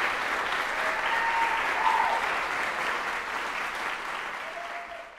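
Audience applauding, the clapping gradually dying away over the last few seconds.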